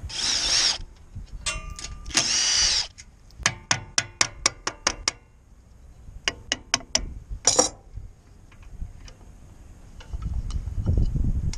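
Tool noises while taking the valve cover off a small engine: two short whirring bursts, then a run of about eight quick, evenly spaced clicks and a few more clicks shortly after, then only faint handling noise.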